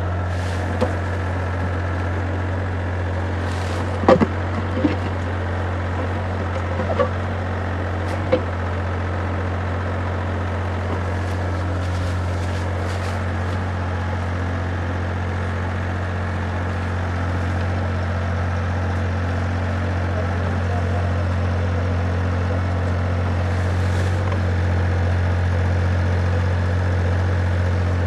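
Mini excavator engine running steadily with a low drone, and a few sharp knocks and clanks about four to eight seconds in.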